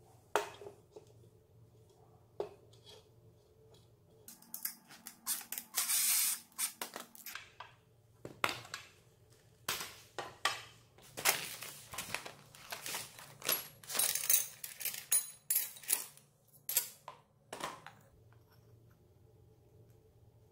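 Hands handling scooter parts and tools: a string of sharp clicks, clinks and knocks of metal and plastic parts, with a short scraping stretch a few seconds in.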